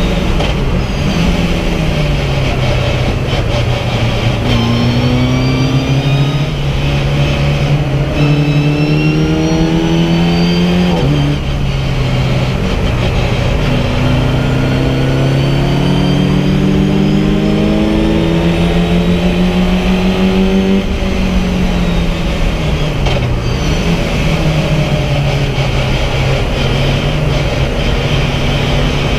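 VW Fun Cup race car's engine heard from inside the cockpit at racing speed, revving up through the gears: its pitch climbs, drops back at each upshift and climbs again, then eases to a lower, steadier note about two-thirds of the way through.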